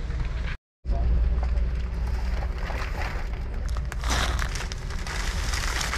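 Steady low background rumble of a big store. From about four seconds in comes a crinkling, crackling rustle of packaging being handled. The sound cuts out completely for a moment near the start.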